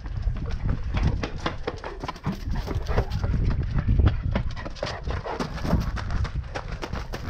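Quick, heavy footfalls of a Newfoundland dog running at full speed over concrete and gravel, mixed with a person's running steps, over a low rumble of movement.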